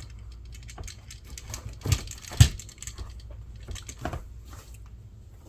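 Leather apron and a tape measure being handled: light rustles and clicks, with two sharper clicks about half a second apart around two seconds in and another near four seconds in.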